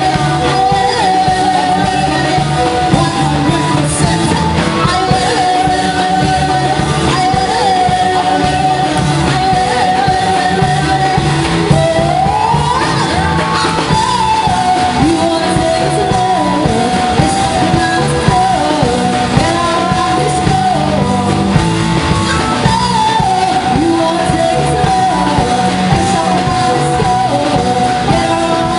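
Live band playing a song: singing over electric guitar and band accompaniment, with long held sung notes and sliding pitches.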